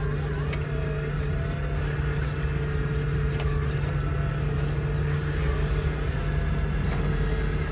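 Radio-controlled hydraulic model excavator running: the steady hum of its hydraulic pump, wavering slightly in pitch as the boom, arm and bucket move, with a few faint ticks.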